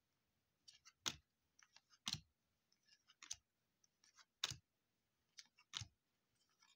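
2020 Topps Series 2 baseball cards being flicked through one at a time, giving soft irregular clicks and snaps of card stock, four of them sharper than the rest.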